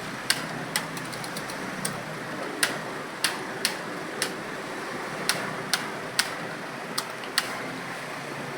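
Computer keyboard keys being struck during typing: irregular sharp clicks, one or two a second, over a steady background hiss.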